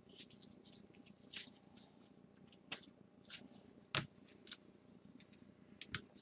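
Faint handling noise: a scattering of light clicks and soft rustles, with slightly sharper taps about 3 s and 4 s in and near the end.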